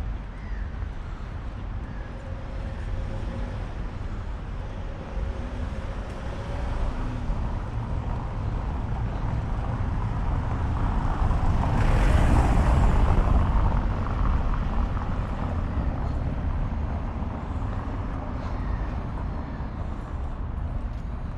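Street traffic: a steady low rumble, with a vehicle passing close that swells up and is loudest about halfway through, then fades.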